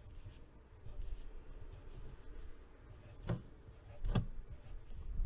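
Pencil writing digits on paper: a series of faint short scratching strokes, with two louder knocks a little after three and four seconds in.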